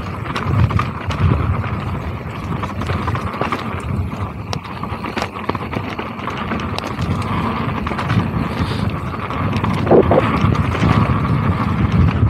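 Mountain bike riding fast down a dry dirt trail: tyres rolling over dirt and leaves, with the bike rattling and knocking over bumps and a low rumble throughout. A brief high tone sounds about ten seconds in.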